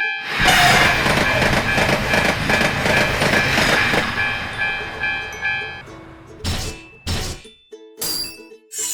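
A train passing a railroad crossing, a loud steady rush of noise over the crossing's warning tones. Both stop at about six seconds, followed by a few short whooshes.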